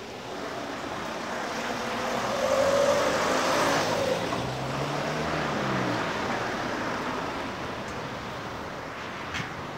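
A car driving past on the street, its engine and tyre noise swelling to a peak about three seconds in and then fading into steady traffic noise.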